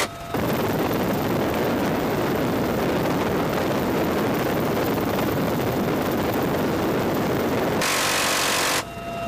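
Helicopter door guns firing in flight: a dense, unbroken rattle of rapid fire through most of it, then near the end about a second of a brighter, buzzing burst from the rotary minigun.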